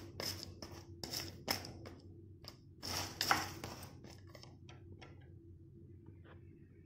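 A spatula stirring roasting lentils, grains and whole nuts in a frying pan: a series of short scraping, rattling strokes, busiest over the first three seconds, then thinning out to a last faint click, over a low steady hum.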